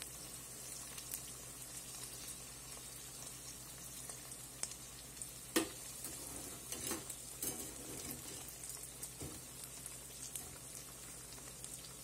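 Battered onion rings frying in hot oil in a deep fryer: a steady sizzle with scattered sharp clicks and pops, the loudest a little before halfway.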